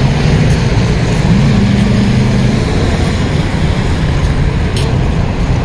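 Street traffic on a busy city avenue: a steady low rumble of passing vehicles. One engine's pitch rises about a second and a half in as a vehicle accelerates.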